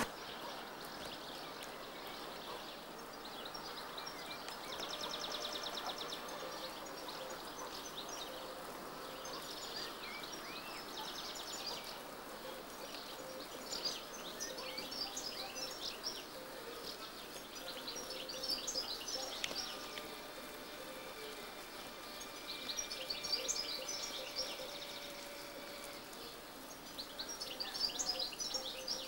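Birds chirping in short bursts every few seconds, one burst a fast even trill, over a faint steady hiss.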